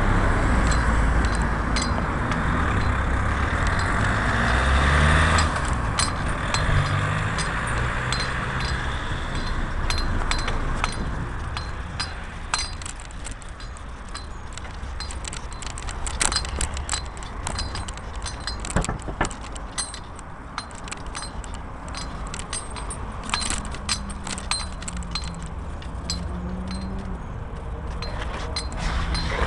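Road traffic at first, a vehicle engine running with low rumble. After about six seconds comes a long, irregular run of small metallic clinks, a bunch of keys jangling in hand as someone walks up to a door.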